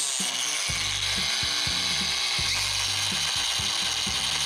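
Bosch GWX18V-10 cordless X-LOCK angle grinder running without load, a steady high whine, as its adjustable speed is shown, with background music underneath.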